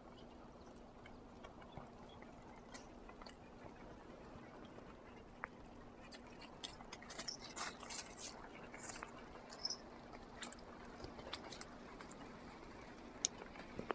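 Faint scattered crackles and clicks, thickest from about six to ten seconds in, of a cat moving through dry twigs and snow.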